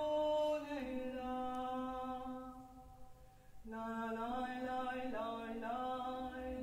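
A woman singing a cappella in long, held, chant-like notes. One note fades away about halfway through, and a new note starts a moment later with small slides in pitch.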